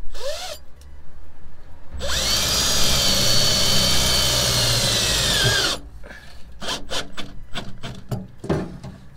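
Cordless drill driving a self-tapping screw into the van's metal underbody near the fuel tank, to fix an earth strap. A brief blip of the trigger comes first. About two seconds in, the motor spins up and runs steadily for nearly four seconds, then winds down. Small clicks and clinks of handling follow.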